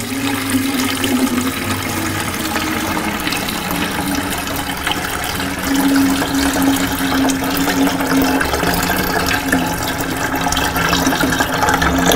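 Coffee poured in a steady stream from a bowl into the glass tank of a hot coffee urn, splashing into the coffee already in the tank.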